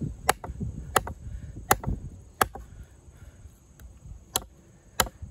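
Large fixed-blade bowie knife, a LionSteel M7 with a Sleipner steel blade, chopping into a hard log. About six sharp strikes come roughly every 0.7 s, with a short pause in the middle.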